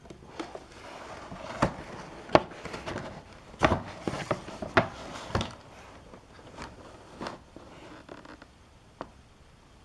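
Cardboard firework box being handled: scraping and rustling with several sharp knocks in the first half, then a few faint ticks.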